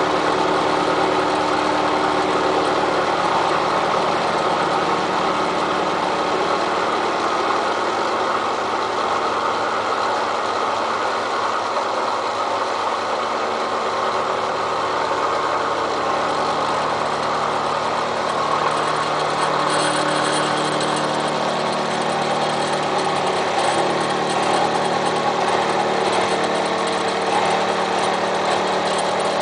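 Milling machine running steadily, its cutter working into the hard steel of a railroad-rail anvil. A harsher high-pitched edge joins the cutting sound about two-thirds of the way through.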